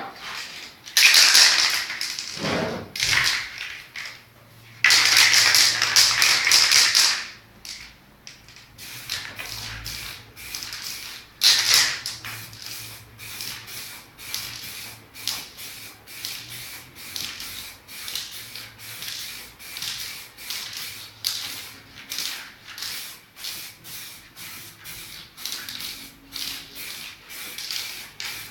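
Aerosol spray can hissing in two bursts of about two seconds each, then a long run of quick, rhythmic rubbing and dabbing strokes, about two to three a second, over the painted canvas.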